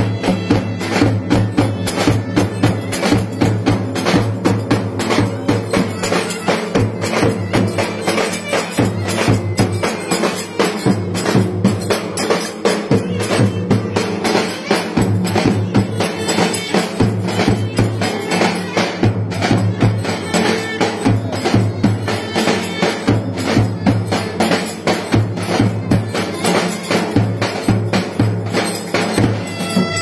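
Live Turkish street music: two clarinets play a lively melody over davul bass drums beaten with sticks in a steady, driving rhythm.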